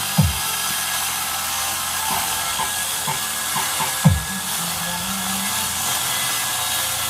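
Subwoofer sound system at high volume during a sound check, playing a track with three deep bass hits that fall quickly in pitch, about four seconds apart, over a steady hiss.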